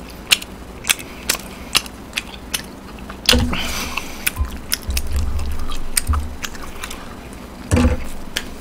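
A person chewing food close to a microphone, with a run of sharp, irregular wet mouth clicks and smacks. Two louder knocks come about a third of the way in and near the end.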